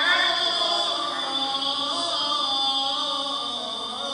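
A man's voice chanting Islamic prayer in long, held melodic phrases with slow rises and falls in pitch, leading the congregation's namaz.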